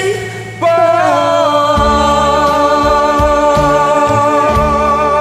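Song music at its close: one long held note, with bass notes coming in about two seconds in.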